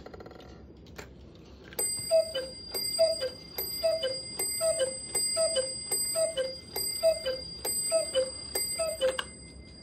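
Hönes 8-day chalet cuckoo clock striking nine o'clock. A brief whirr of the movement and a click as the hand reaches the hour are followed by nine falling two-note cuckoo calls, each with a bright bell strike that rings on over them.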